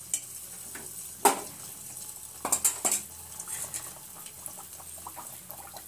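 Malpua batter frying in hot oil in a non-stick pan: a soft hiss with small crackles, broken by a sharp clink of a metal utensil against the pan about a second in and a quick run of clinks around the middle.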